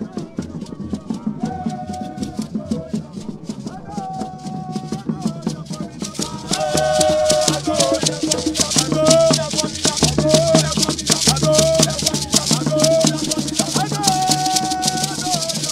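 A group of people singing repeated short phrases over hand rattles shaken in a steady rhythm. The shaking gets much louder about six seconds in.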